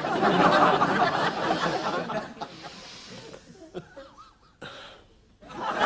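Studio audience laughing, loud at first and dying away after a couple of seconds.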